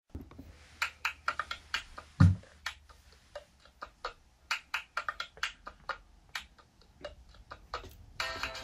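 Cup-song routine: a run of sharp hand claps and taps on an upturned plastic cup and tabletop, with the cup knocked down hard on the table about two seconds in. Near the end, singing with music starts.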